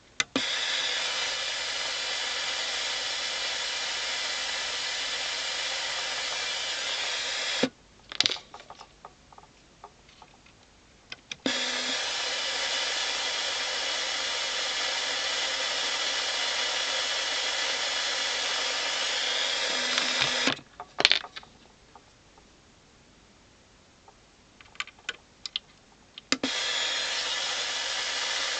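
Amplified white noise from a noise generator, played through a germanium-transistor amplifier stage and its loudspeaker as a steady hiss. It cuts out twice for a few seconds, with crackles and clicks as the transistor is pulled from its socket and another put in, then comes back.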